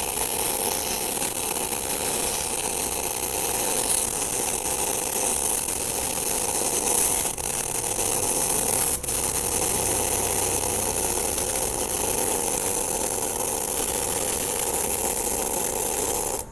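MIG welding arc from a TopGun MIG 315VS welder running a bead on 20 mm thick steel plate: a steady hiss with two brief dips around the middle, cut off abruptly at the end as the arc is broken.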